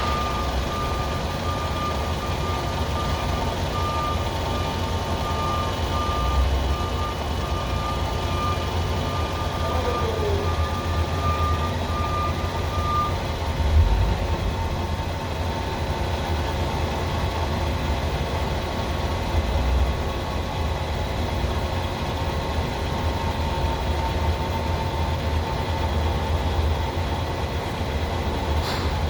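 FH680 machining center's spindle running with a steady low hum and thin whine tones, one high whine pulsing until about halfway through; the owner suspects a spindle bearing. A single knock about halfway through.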